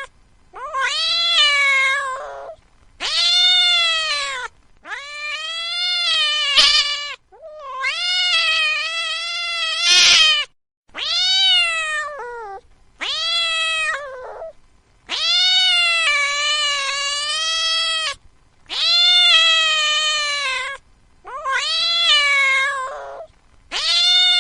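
A cat meowing over and over: about ten long, drawn-out meows, each lasting one to three seconds, with short pauses between. Each meow rises and then falls in pitch.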